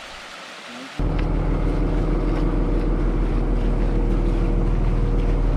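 Water trickling down a small rock-face waterfall, then, cut in abruptly about a second in, the diesel engine of a tracked excavator running steadily close by, low-pitched and much louder.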